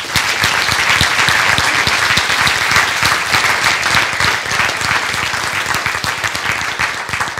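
Audience applauding: many hands clapping together, starting suddenly at the close of a talk and keeping up steadily before tailing off near the end.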